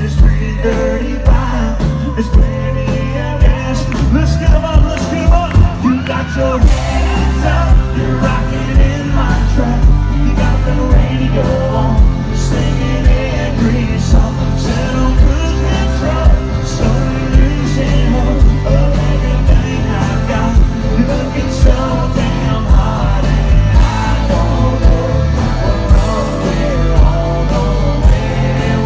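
Live country-rock band playing the song loudly, with a steady drum beat and some singing over it.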